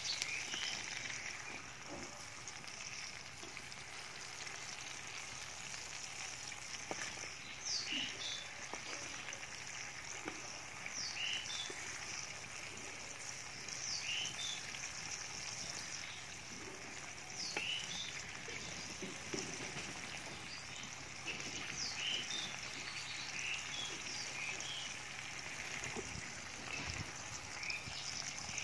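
Sparrow curry gravy bubbling and simmering in a pan, a steady hiss, with short high falling chirps from a small animal repeating every second or so over it.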